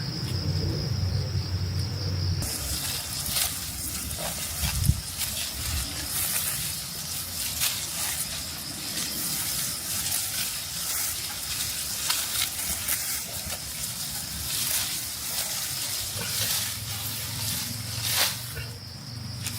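Dry rice stalks rustling and crackling with many small snaps as ripe rice is harvested by hand. The rustling starts about two seconds in and stops just before the end, over a steady high-pitched insect drone.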